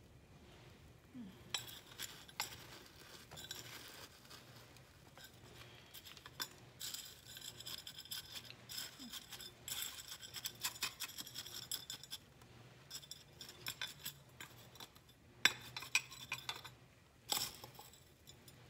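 Small hand trowel scooping and scraping gritty potting soil mixed with perlite and pumice into a glazed ceramic pot, the blade clinking against the pot. Irregular scraping and rustling, busiest in the middle, with a couple of sharper clinks near the end.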